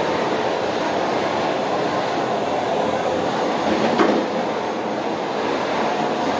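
Vacuum cleaner running steadily, with one short knock about four seconds in.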